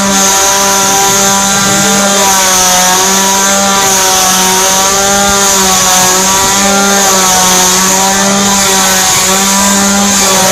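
Two-stroke chainsaw engine running steadily at a fast idle, its pitch wavering slightly up and down.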